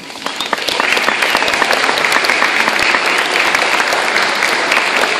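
Audience applauding, with sharp claps from someone close by. The applause swells up about half a second in and then keeps up steadily.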